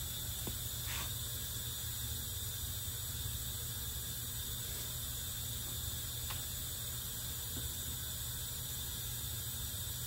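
Steady low hum and hiss of a quiet room, with a few faint light clicks and one short squeak as small metal parts and screws of a Graco T1 transfer pump are handled during reassembly.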